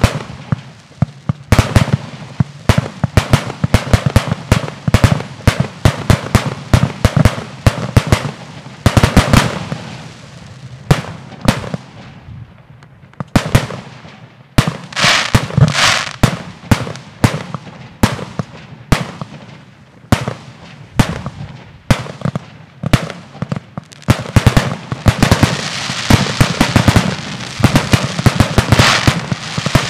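Aerial fireworks display: a fast, irregular string of shell bursts and bangs. There is a brief lull about a third of the way in. Crackling effects fill in around the middle and again near the end, as the firing grows denser.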